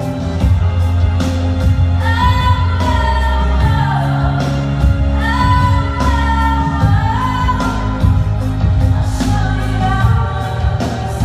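A woman singing live into a handheld microphone over instrumental accompaniment with a steady beat, amplified through a PA; her sung line enters about two seconds in.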